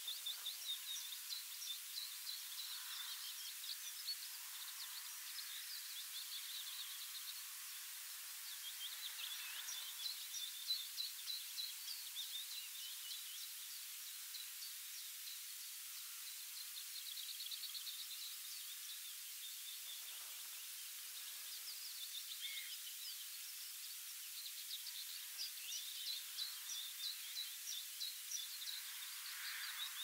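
Songbirds singing in runs of rapid chirping notes, each run a few seconds long with short pauses between, over a steady hiss.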